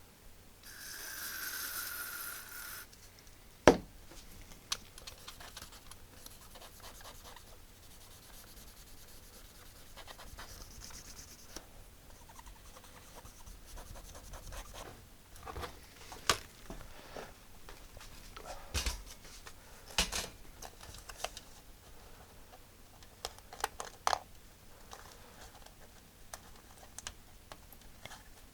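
DeoxIT contact cleaner sprayed from an aerosol can onto the keyboard connector: a steady hiss of about two seconds. A sharp knock follows, then scattered clicks, taps and scraping as the keyboard parts are handled.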